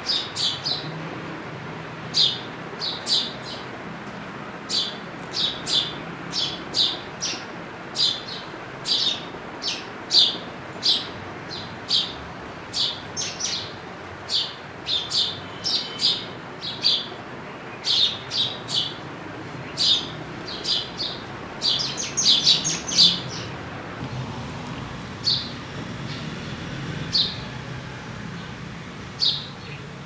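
Sparrow chirping: short, sharp high chirps at irregular intervals, one to a few a second, coming in a quick flurry a little past the middle and thinning out near the end, over a steady low background noise.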